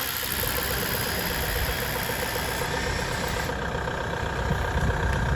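An engine or motor running steadily with a low rumble.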